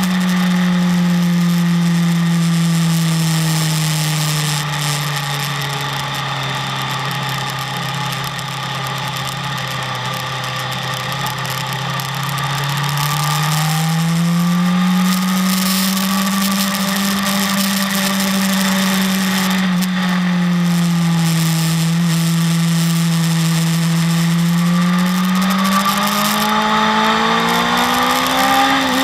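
BMW S1000RR inline-four sportbike engine running hard on track. Its pitch sinks slowly for about twelve seconds, rises again, dips, and climbs once more near the end.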